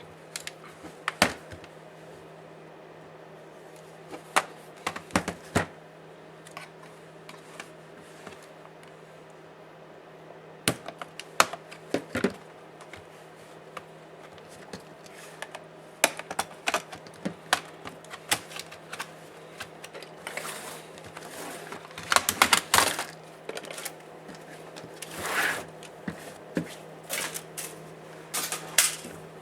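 Scattered clicks, taps and clatter of hand tools and plastic parts being handled while a Dell Latitude 5480 laptop is taken apart, coming more often in the second half, with a brief scraping sound near the end. A faint steady low hum lies underneath.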